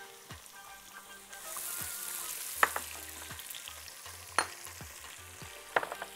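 Chopped onion sizzling as it drops into hot oil in a pot and is stirred. The hiss swells about a second in, and three sharp knocks against the pot come through it.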